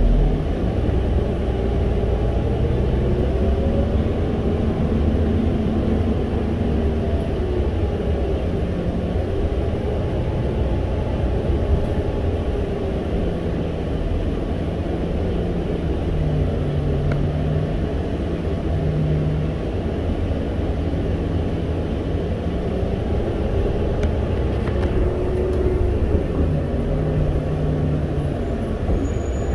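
Inside the cabin of a New Flyer C40LFR natural-gas (CNG) transit bus under way: a steady engine and drivetrain drone with road rumble, its pitch rising and falling several times as the bus speeds up and slows.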